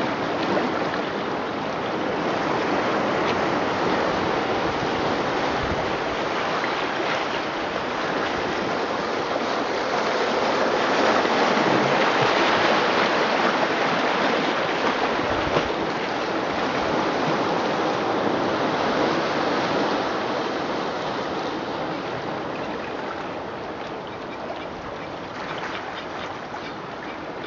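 Recorded ocean surf: a continuous wash of waves that swells about ten seconds in and eases off toward the end.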